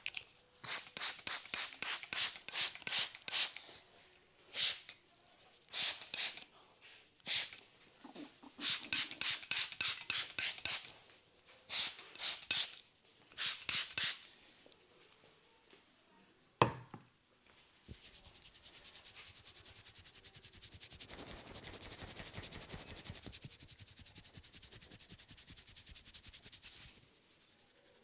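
A barber's hands rubbing briskly over hair and scalp during a head massage, in bursts of quick, rhythmic strokes. About two-thirds of the way through comes one sharp, loud snap. After it, a long run of very fast, even strokes continues until shortly before the end.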